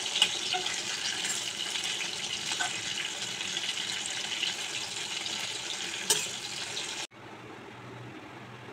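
Spice-marinated fish pieces sizzling and crackling in hot oil in a wok, with a sharp clack of the spatula against the pan about six seconds in. The sizzle cuts off suddenly about seven seconds in, leaving a quieter steady background with a low hum.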